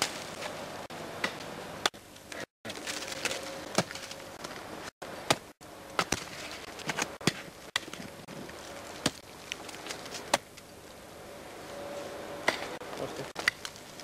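Ice axe picks striking into a frozen waterfall, sharp chops at irregular intervals of about a second, with a few brief dropouts to silence.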